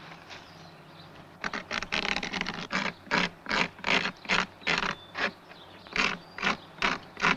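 A rapid series of short, sharp knocks or cracks starting about a second and a half in, first bunched close together, then evenly spaced at about three a second.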